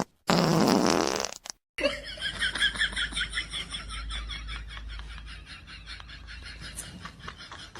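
A loud, buzzy fart noise about a second long, then a long stretch of rapid, rhythmic, high-pitched laughter.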